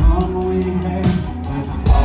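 A live country rock band playing: electric guitar, bass and drums, with a man singing into a microphone. A loud drum hit comes near the end.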